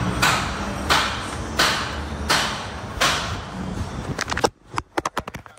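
Footsteps on a concrete shop floor at a steady walking pace, about one step every 0.7 s, over a low steady hum. A little over four seconds in the steps stop and the sound drops away, with a quick flurry of small clicks.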